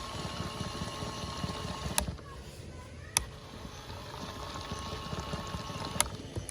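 Modified high-speed toy washing machine running with water churning inside and its small motor giving a steady whine. Sharp clicks come about two seconds in, about three seconds in and near the end, and the whine drops out between the first two clicks.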